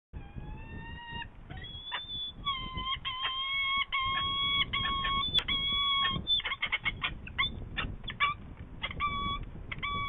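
Saker falcons calling at the nest: a run of repeated drawn-out calls that breaks into a quick series of short calls about six seconds in, as the second adult lands. Drawn-out calls follow again near the end. These are calls at the arrival of an adult with prey.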